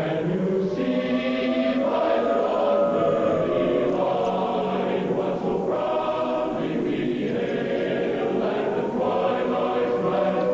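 Choir singing a slow national anthem, several voices holding long notes and moving together between chords.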